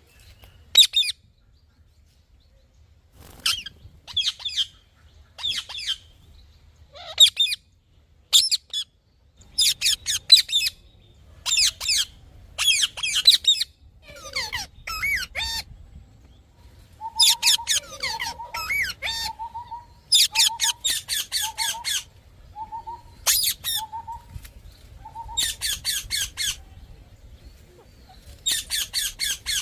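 Parrot giving repeated bursts of rapid, harsh, high-pitched chattering calls, each burst lasting about half a second to two seconds. In the second half, a run of short, lower whistled notes mixes in with the chatter.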